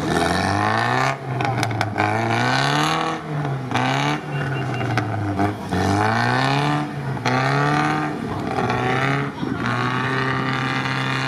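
UAZ off-roader's engine revving up and dropping back over and over as it churns stuck in deep mud, held high and steady near the end. The driver is working the clutch so hard that it is burning, by the smell.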